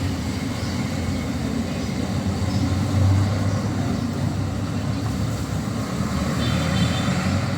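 City street ambience: a steady low rumble of passing traffic, swelling briefly about three seconds in.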